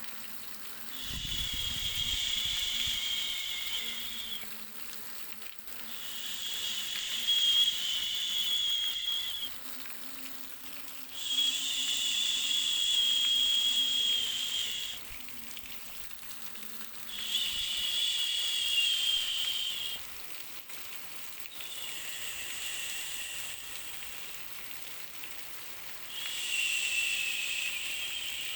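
White-noise hiss that swells in repeated bursts of about three seconds each, with shorter, quieter gaps between them.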